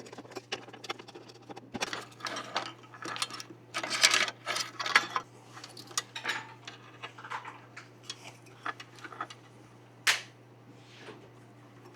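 Hands working on a PC motherboard: a run of small clicks, taps and rustling of plastic and metal parts, with one sharper click about ten seconds in.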